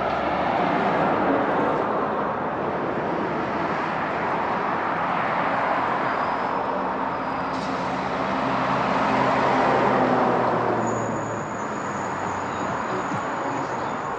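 Road traffic: cars passing, the tyre and engine noise swelling as one goes by about a second in and another about ten seconds in, with an engine hum underneath in the middle.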